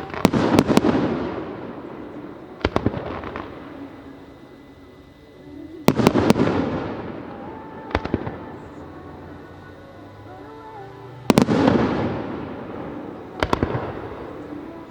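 Aerial firework shells bursting: three big booms about five seconds apart, each trailing off in a long echoing rumble, with a sharper crack about two seconds after each.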